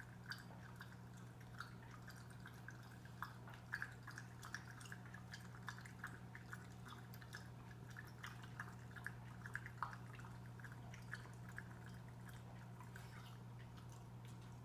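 Aquarium filter bubbling: faint, irregular drips and plinks of bubbles breaking at the water surface, over a steady low hum.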